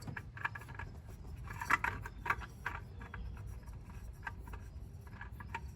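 Light scraping and small irregular clicks as a new spin-on oil filter is handled and screwed on by hand.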